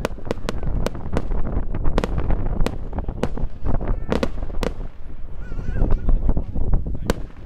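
Aerial fireworks bursting in quick succession: a rapid series of sharp bangs and crackling reports, about two to three a second, over a low rumble.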